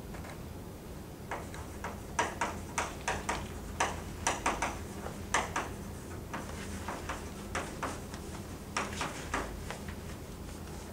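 Chalk writing on a blackboard: a run of quick, irregular taps and clicks from about a second in, a short pause, then a few more taps later on. A steady low hum runs underneath.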